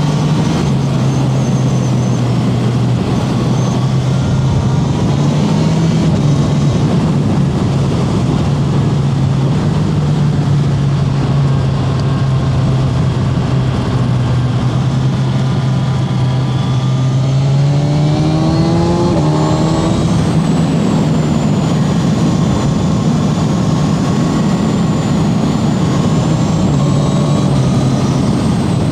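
Kawasaki Z1100 SE's air-cooled inline-four engine running at steady revs, with the revs climbing for a few seconds about two-thirds of the way through.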